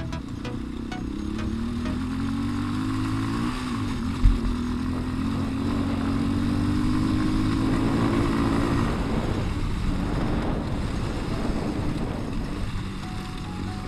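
150cc Daymak ATV engine pulling under throttle, its pitch rising over the first few seconds, dropping briefly, then climbing again before easing off. A single loud thump comes about four seconds in.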